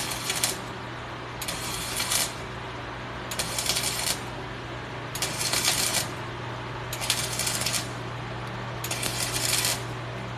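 Arc welder laying a series of quick tack welds: six short crackling bursts of the arc, each under a second, about two seconds apart, over a steady low hum.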